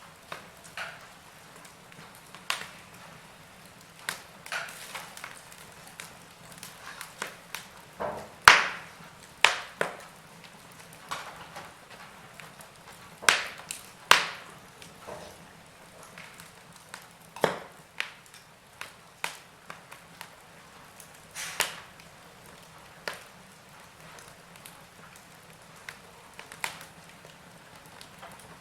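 Burning logs in a fireplace crackling, with irregular sharp pops and snaps over a soft steady hiss; the biggest pops come about 8 seconds in and again around 13 and 17 seconds.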